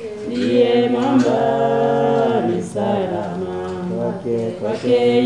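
A group of voices singing a cappella, several parts at once, with long held notes.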